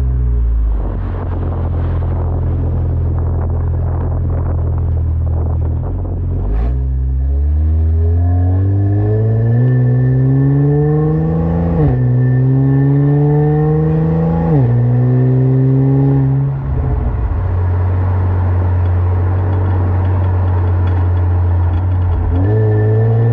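Kia Stinger with a custom Y-pipe exhaust accelerating hard through the gears. The engine note climbs in pitch, drops sharply at an upshift about halfway through, climbs again and drops at a second upshift, then eases off to a steady cruise.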